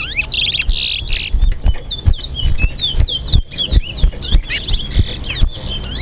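Caged male towa-towa (chestnut-bellied seed finch) singing in competition: a rapid, unbroken run of short whistled notes that sweep up and down, mixed with buzzy, scratchy phrases. Soft low knocks sound here and there underneath.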